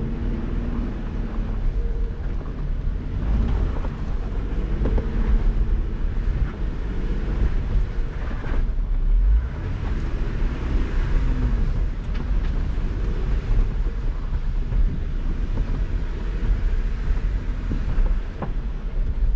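Jeep Wrangler JL Rubicon's engine running under load as it crawls up a steep slickrock climb, heard from inside the cab as a steady low rumble.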